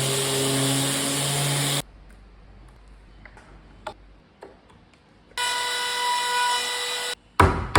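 Workshop power tool motor running with a steady whine in two spells, each cutting off abruptly, with light clicks and taps between them. A sharp loud knock comes near the end.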